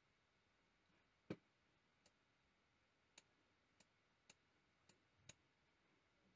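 Faint computer mouse clicks, about seven spread over a few seconds, the first the loudest.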